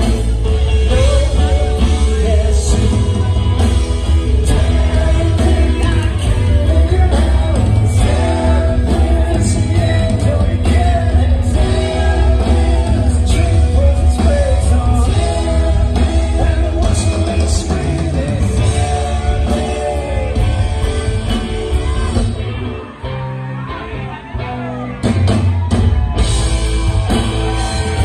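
Live rock band playing in a concert hall, with singing over electric guitars, bass and drums. Near the end the band drops back for a couple of seconds, then comes back in full.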